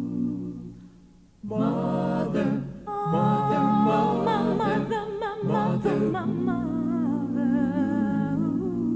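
Several voices singing together in harmony without instruments. The singing breaks off briefly about a second in and resumes about half a second later. Near the end the voices hold wavering notes.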